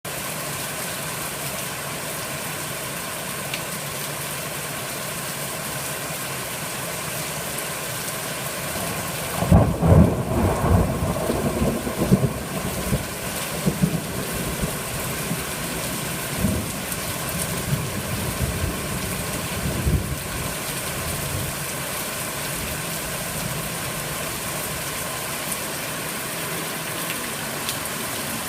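Steady heavy rain during a thunderstorm. About ten seconds in, a thunderclap breaks suddenly and rolls on in rumbles for about ten seconds before fading back under the rain.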